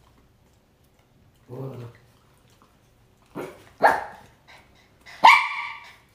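Small poodles barking for treats: a couple of short, sharp barks a little past halfway, then a louder, drawn-out yelp near the end.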